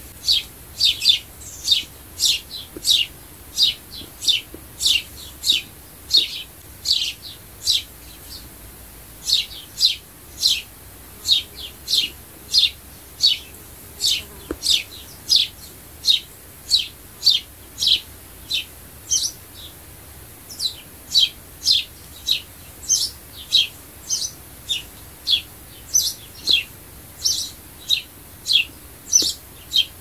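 Sparrow chirping: a steady string of short, sharp cheeps, roughly two a second, broken by a couple of brief pauses.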